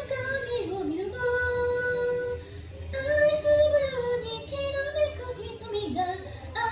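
Female voice singing a cappella, with a long held note about a second in and another rising held note around three seconds in.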